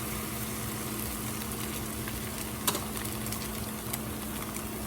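Eggs frying in hot sesame oil beside the vegetables in a pan: a steady sizzle with fine crackles over a low hum. A sharp tap, likely a utensil on the pan, about two and a half seconds in.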